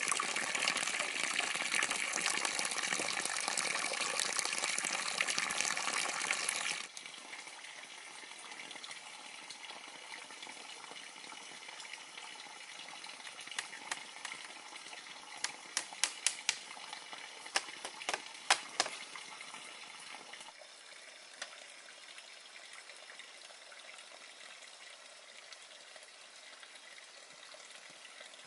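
Running water splashing, loud for about the first seven seconds, then cutting to a quieter stretch of water with a run of sharp clicks and taps in the middle.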